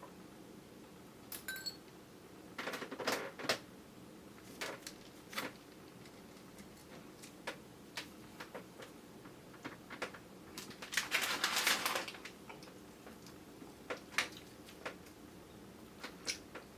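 Eating sounds of chewy grape jelly, picked up by a camera's built-in microphone: scattered wet clicks and squishes, with a denser run of crackling about eleven seconds in.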